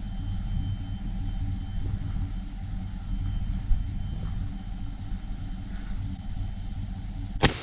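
A vehicle engine idling with a steady low rumble, then a single loud gunshot near the end.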